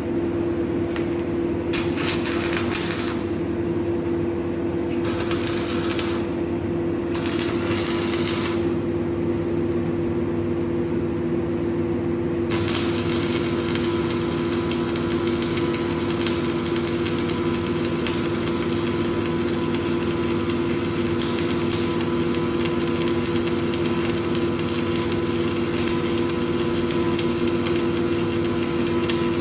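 Welding equipment running with a steady machine hum. Three short bursts of crackling hiss come in the first nine seconds, and the hiss then runs on from about twelve seconds in, like a welding arc struck briefly and then held for a longer weld.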